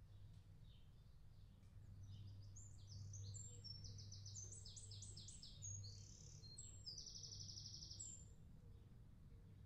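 A small songbird singing a long, varied song of quick repeated high notes in several groups, ending in a fast trill about eight seconds in, over a faint steady low hum.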